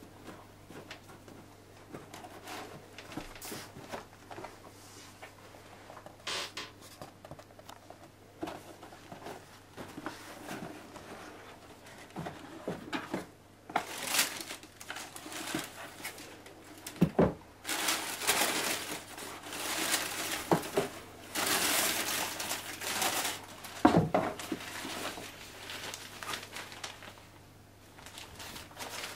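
Packaging being handled while a boot box is unpacked: paper and cardboard crinkling and rustling, sparse at first and busier in the second half, with two knocks, about two-thirds of the way through and again near the end.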